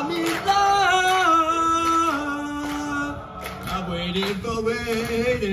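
Chorus singing held notes that step down in pitch over the first three seconds, then climb again near the end.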